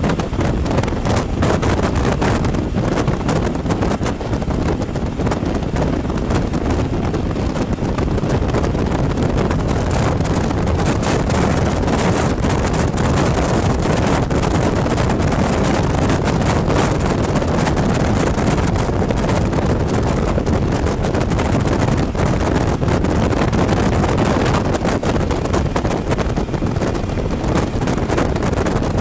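Steady wind rush over the microphone of a Suzuki V-Strom motorcycle riding at road speed, with the motorcycle's running noise underneath.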